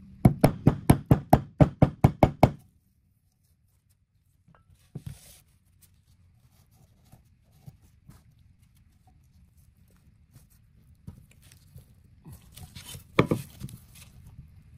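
Rubber hammer tapping a new input shaft seal into a Talaria Sting gearbox case: about a dozen quick knocks over two seconds, about five a second. After that come light handling sounds of the case on the bench, with one louder knock near the end.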